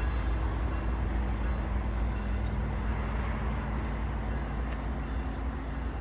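Vale diesel-electric locomotive running light past the track, its engine giving a deep steady rumble with a low hum that eases off slightly toward the end.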